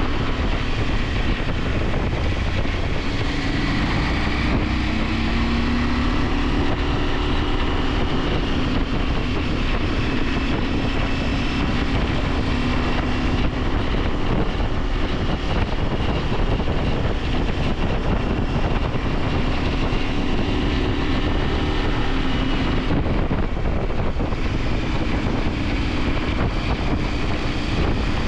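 KTM 890 Adventure's parallel-twin engine running under way, its pitch rising and falling with the throttle, under a heavy low wind rumble on the microphone.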